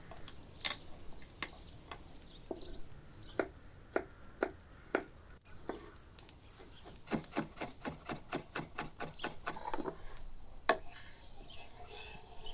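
Chef's knife chopping garlic on a bamboo cutting board: single cuts knocking on the wood about every half second, then a quick run of about five chops a second for a few seconds, and one last knock near the end.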